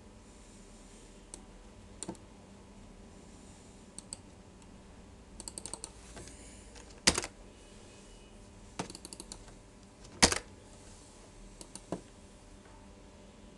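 Computer keyboard typing in short scattered runs of keystrokes, with two louder single clicks about seven and ten seconds in.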